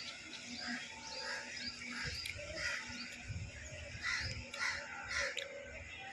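Crows cawing again and again, many short calls one after another, with other birds calling in between.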